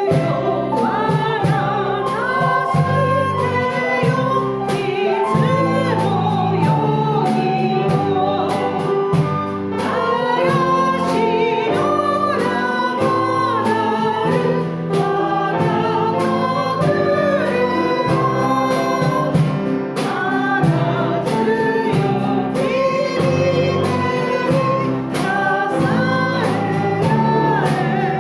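Several voices singing a hymn over instrumental accompaniment with a steady beat.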